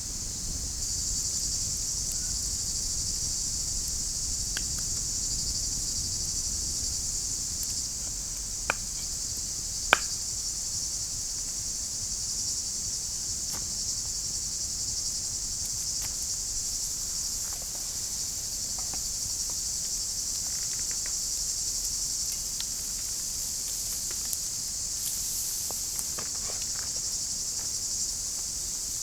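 Steady, high-pitched chorus of chirping insects such as crickets, with a few sharp knocks or clicks scattered through it. The loudest two come close together about nine and ten seconds in.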